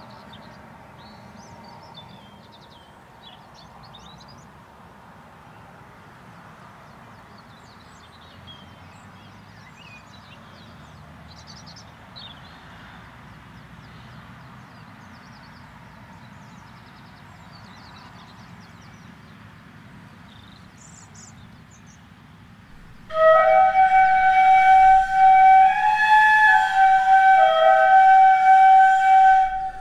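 Quiet outdoor background with faint, scattered bird chirps for most of the stretch. About twenty-three seconds in, a flute comes in much louder, playing a slow tune of long held notes.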